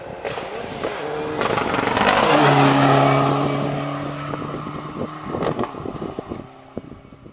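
Rally car passing at speed: engine and tyre noise build to a peak about three seconds in, then the engine holds a steady note as the car pulls away and fades.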